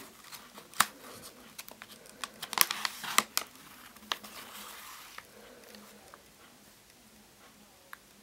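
Paper pages of a handmade picture book being turned by hand: a sharp tap about a second in, then a burst of rustling and crinkling paper around three seconds in as the page flips over, followed by quieter handling.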